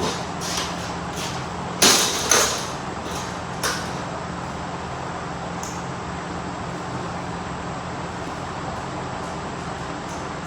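A handful of short, sharp knocks and clicks in the first few seconds, the loudest two close together about two seconds in, over a steady low hum.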